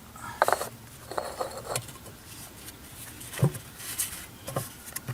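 Scattered light clicks and knocks of metal bolts and tools being handled while the oil pan bolts are started by hand.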